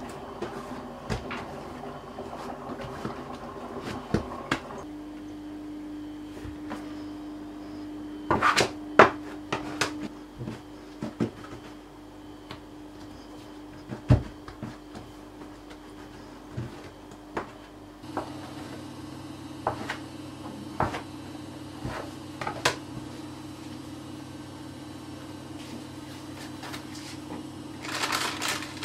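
Hands working soft dough on a worktop: scattered soft knocks and taps as brioche dough is pressed, degassed and shaped, with the loudest cluster about nine seconds in, over a steady low hum. Near the end comes a quick run of rustling as parchment paper is handled.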